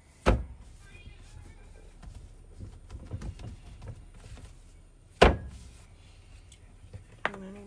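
Two sharp knocks of kitchen things being handled, about five seconds apart; the second is the louder. Faint clicks and scrapes come in between.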